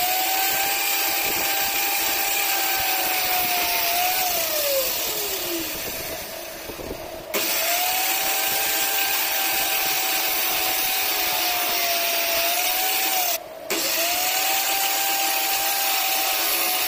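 Handheld circular saw running at full speed with a steady whine, dipping slightly in pitch as it bites into wooden strips. About four seconds in it is released and winds down with a falling whine. It starts again at about seven seconds, cuts out briefly about three seconds before the end, and starts once more.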